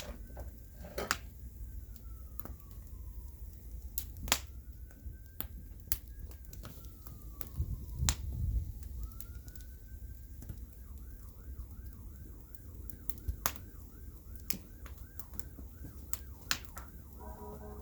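Bonfire crackling with scattered sharp pops over a low rumble. A faint, distant emergency-vehicle siren wails in two slow rising-and-falling sweeps, then switches to a fast yelp about ten seconds in.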